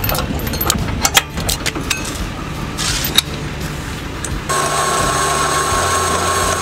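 Metal clinking of a trailer's hitch pin and safety chains being handled. About four and a half seconds in, a small motor starts and runs steadily with a whine.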